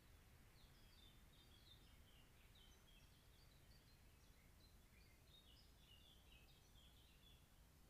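Faint songbird song: many short chirping and warbling notes in quick succession, over a steady low background hiss.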